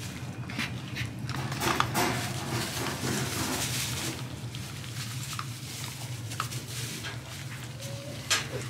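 American Bully puppies eating dry kibble from a bowl: quick, irregular crunching and chewing clicks over a steady low hum.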